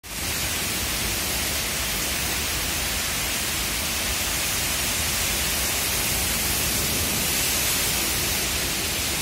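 Heavy rain falling steadily onto a flooded yard and patio, a dense, even hiss with no let-up.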